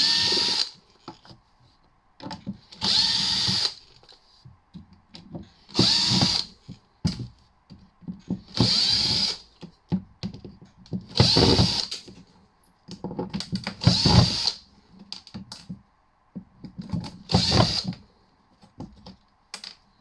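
Cordless drill-driver backing screws out of a small karaoke machine's casing in short runs, about seven of them a few seconds apart, with small clicks and rattles of handling in between.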